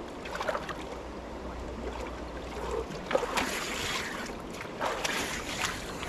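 Water splashing in irregular bursts as a person wades and swims in a river pool, over a steady rush of water.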